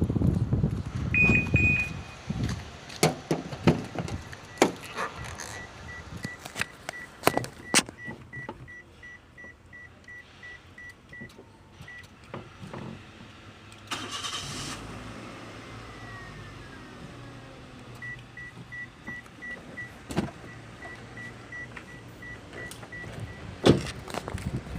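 Perodua Myvi with an aftermarket keyless alarm and push-start system: a short beep, then a series of sharp clicks and a repeating high warning chime. About 14 seconds in the engine cranks briefly, catches and settles into a steady idle, and the chime sounds again near the end.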